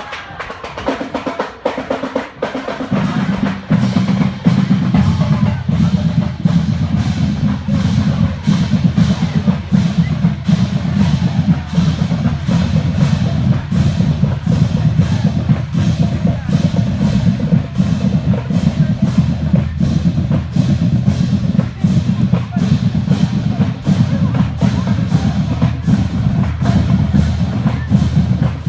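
Marching band drumline playing a cadence: sharp, evenly spaced strikes over a steady low drum sound, growing louder about three seconds in.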